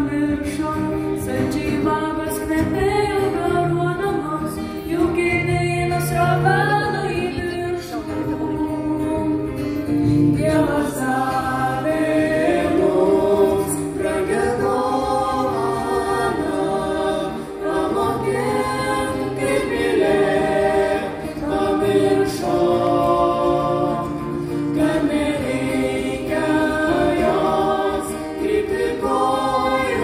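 A live band plays a song while several voices sing together, backed by guitars and a steady bass line.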